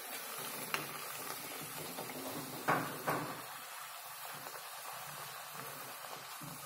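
Puri deep-frying in hot oil in a kadhai, a steady sizzle, with a metal spoon clicking against the pan a few times, twice sharply about three seconds in.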